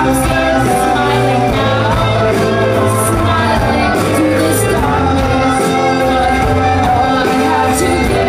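A live rock band playing a song with a singer's voice over piano, guitar, bass and drums, heard loud and full from within the audience in a hall.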